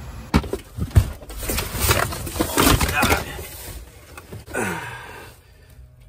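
Handling noise: two sharp knocks, then clattering and rustling as tools and parts are moved about, with a brief voice-like sound near the end.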